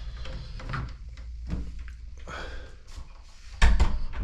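A few light knocks, then a loud clatter of thuds about three and a half seconds in, as a wooden door is handled.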